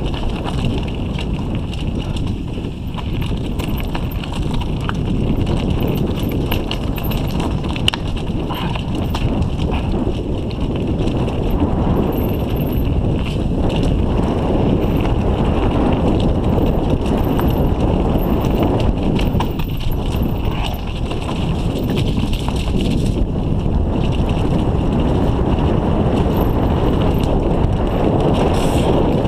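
Mountain bike rolling fast down a loose rocky trail: the tyres crunch and rattle over stones while the bike and its mounted camera shake and knock.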